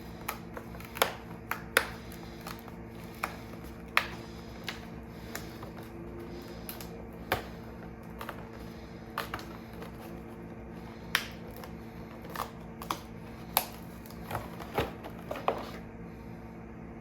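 Cardboard advent calendar door being opened and the packaging handled: a series of irregular sharp clicks and taps, over a steady low hum.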